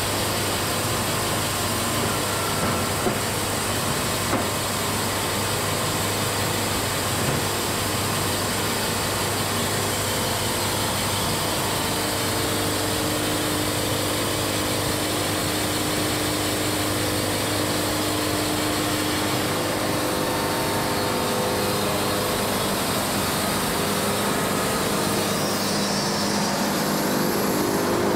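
Wood-Mizer LT70 band sawmill running steadily as its sawhead travels along a Kentucky coffee tree cant, the band blade cutting a board off it.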